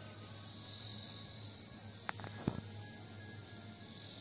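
A steady, high-pitched chorus of insects shrilling, with a few faint clicks about halfway through.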